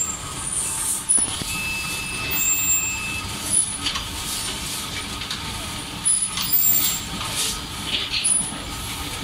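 Selective soldering machine and workshop machinery running: a steady mechanical rumble and hum with repeated short hisses of air and a few brief high-pitched tones, one held for under two seconds about a second and a half in.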